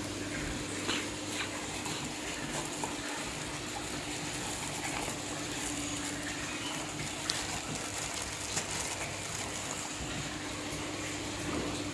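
Aquarium filter and pump running steadily: a continuous rush of moving water over a low steady hum, with a few faint clicks.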